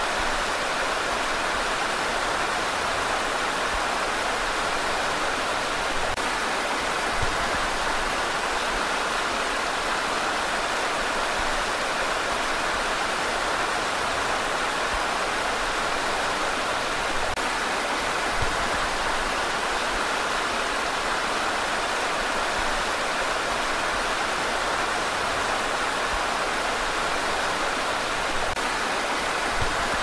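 Whitewater river rapids rushing over rocks: a steady, even rush of turbulent water.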